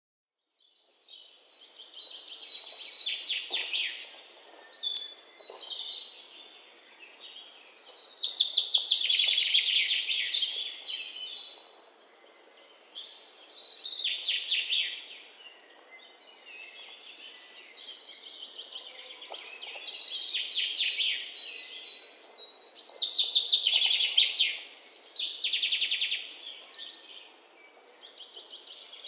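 A small songbird singing high, rapid trilling phrases, each two to three seconds long and repeated every few seconds, some louder than others, over a faint background hiss.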